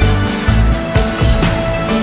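Background music with a steady beat, about two low beats a second under held tones.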